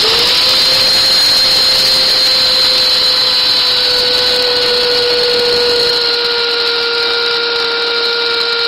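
Electric coffee grinder running steadily with a loud motor whine. The pitch rises briefly as it comes up to speed just after switching on, then holds, sagging slightly over the last few seconds.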